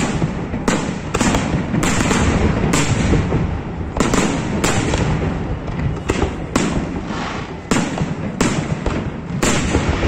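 Fireworks display: aerial shells bursting one after another, about a dozen sharp bangs at uneven intervals over a continuous low rumble.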